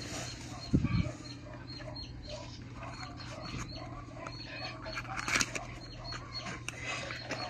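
Cardboard boxes handled on a table: a knock as one is set down about a second in, and a rustling scrape of a box flap being opened near the middle. Under it runs a steady train of small high peeps, about four a second, and a low hum.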